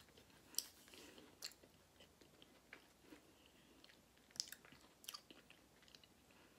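Faint chewing of a mouthful of Twix Cookies & Cream candy bar with the mouth closed: scattered soft crunches and wet mouth clicks, the sharpest about four and a half seconds in.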